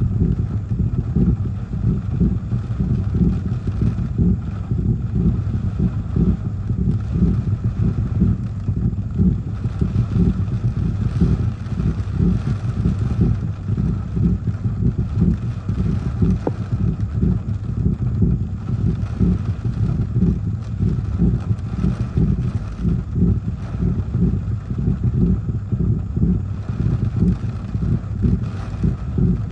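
Strong gusty tropical-storm wind with rain buffeting the car and microphone, a loud low rumble that keeps surging and easing.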